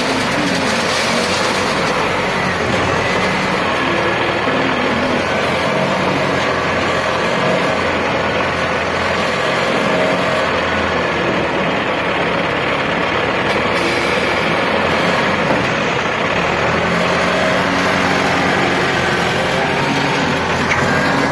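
Caterpillar 950B wheel loader's six-cylinder diesel engine running steadily and loudly as the loader raises its bucket, tips a load of sand into a trailer and backs away.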